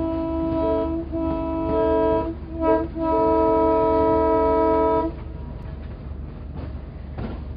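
Sound-equipped N scale Southern Railway model diesel locomotive blowing its multi-chime horn in the grade-crossing pattern: two long blasts, a short one, then a long one. A low steady hum runs underneath.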